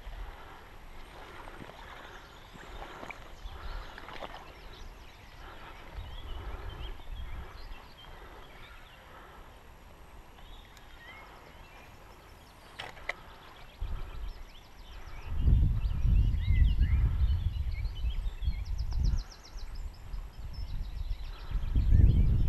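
Small birds chirping and singing, many short calls throughout. In the second half, gusts of low rumble from wind buffeting the microphone come and go.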